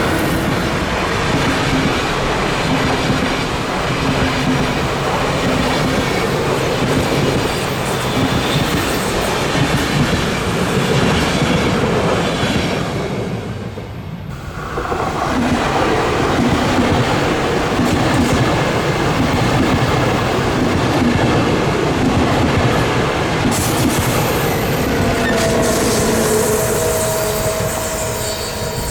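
A train rolling past at close range, its wheels clattering over the rail joints while steady high tones of wheel squeal ring over the rumble. The sound eases off briefly about halfway, then comes back just as loud.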